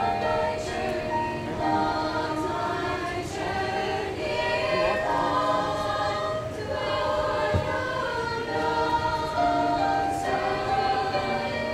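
Women's choir singing in harmony, holding long notes that change about once a second.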